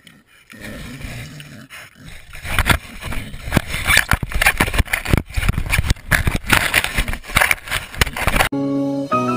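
A dog nosing and mouthing a small camera at close range. It makes a run of irregular scrapes, knocks and rustles against the camera body, growing busier from about two and a half seconds in. Music starts near the end.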